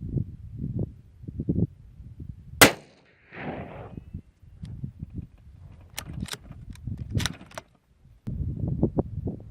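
A single shot from a Howa 1500 Ranchland .223 Remington bolt-action rifle about two and a half seconds in, by far the loudest sound, followed by a few sharp clicks a few seconds later. Low rumbling noise runs underneath.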